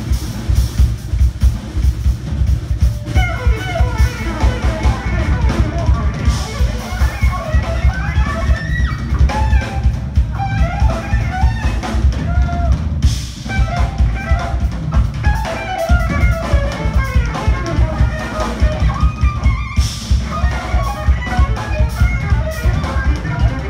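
Live jazz-funk band playing: a drum kit and bass keep a driving beat under a fast lead melody line that bends in pitch, with a brief break about halfway through.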